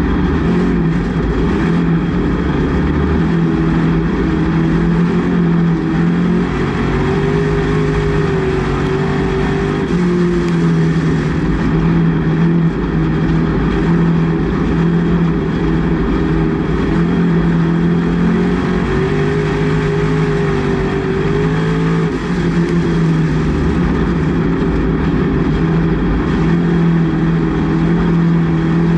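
Race car engine running hard, heard from inside the cockpit. Its pitch rises and falls in a repeating cycle about every twelve seconds as the car accelerates and lifts around the oval.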